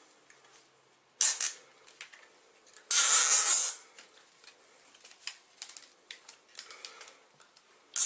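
Nylon zip ties being pulled tight through their locking heads: a short rasp about a second in, a louder ratcheting rasp just under a second long near the middle, then a run of small clicks and ticks.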